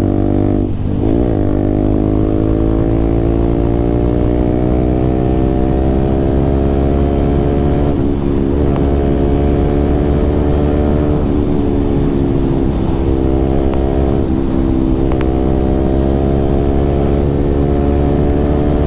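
KTM RC 200's single-cylinder engine running through an aftermarket SC Project-style full-system exhaust at speed. It dips briefly about a second in, then climbs slowly in pitch as the bike accelerates, with a short break near eight seconds.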